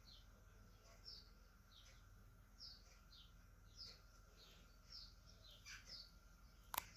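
Faint, short chirps from a bird, each sliding down in pitch, repeating about twice a second over a faint steady hum. A sharp click comes just before the end.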